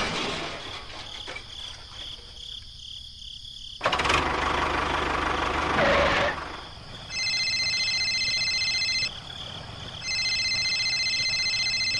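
Small machine motor running, louder for a couple of seconds in the middle, followed by two long, steady, high electronic tones, each about two seconds long.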